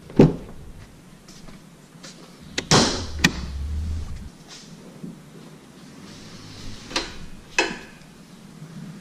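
2017 Toyota Tacoma's door and hood latches being worked: a sharp click as the driver's door unlatches, a couple of knocks with a short low rumble about three seconds in as the hood release is pulled, and two more clicks near the end as the hood's safety catch is freed.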